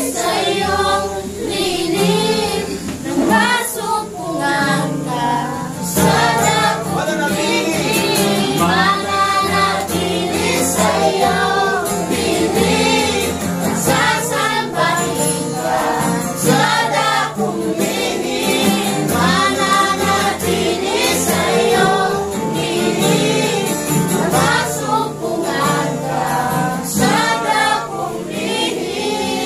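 A congregation singing a Tagalog worship song together, led by one voice, over a steady instrumental backing.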